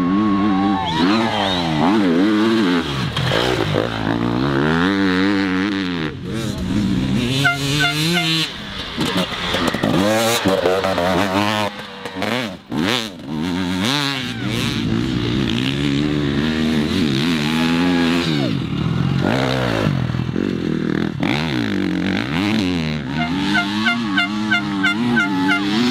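Enduro dirt bike engines revving hard as riders ride up and across a dirt hill one after another, the engine note climbing and dropping over and over as the throttle opens and closes.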